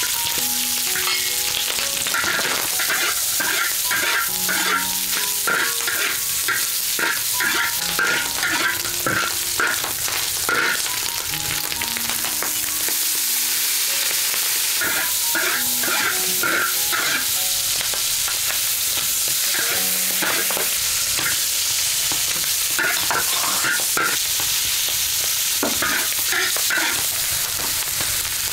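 Sliced cured fat meat sizzling in a large wok while a metal spatula scrapes and clinks against the pan in runs of quick stirring strokes, with pauses between them.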